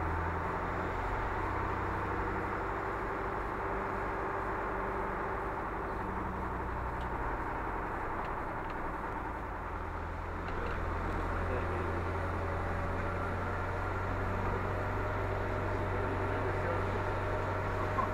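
CAS 20 Terno fire truck's diesel engine and road noise heard from inside the cab while driving, a steady low drone with no siren.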